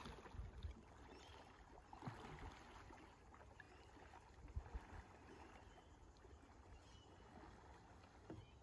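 A few faint splashes of a kayak paddle dipping into river water, over a quiet low rumble.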